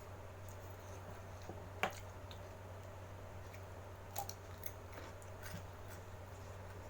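Close-up eating sounds: quiet chewing and mouth noises, with one sharp click about two seconds in and a few softer clicks a little past four seconds, over a steady low hum.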